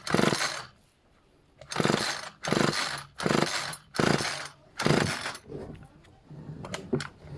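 Homelite HBLT25CNB trimmer's small two-stroke engine being cranked by its recoil pull-starter, about seven quick pulls in a row, a little under a second apart. It turns over without firing while a compression gauge sits in the spark plug hole. The test reads only 60 psi: low compression, a worn engine.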